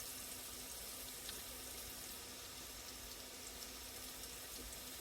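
Fried rice sizzling faintly and steadily in the pan, with a few faint crackles.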